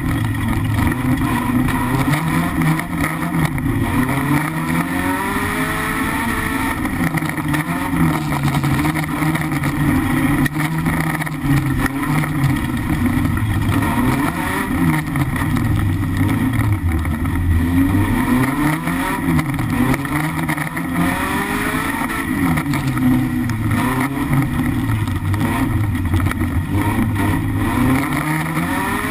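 BMW E36 318is four-cylinder engine at racing revs, heard from inside the stripped race car's cabin, its pitch climbing and dropping again and again as the driver accelerates and lifts off around the dirt track.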